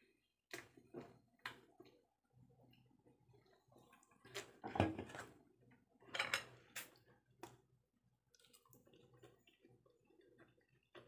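Quiet sounds of someone drinking from a soda can and eating at a table: scattered light clicks and knocks, with two louder rustling moments about five and six and a half seconds in.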